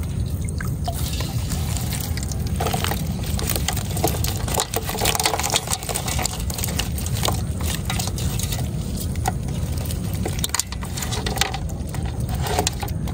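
Water splashing and dripping as a fish trap's wet catch of small fish, shrimp and eels is poured out into a plastic basket over a metal basin, with many small irregular wet taps and flicks.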